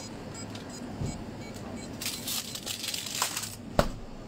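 Rustling and clicking of grocery packaging and a wire shopping cart being handled, with a soft thump about a second in and one sharp clack near the end.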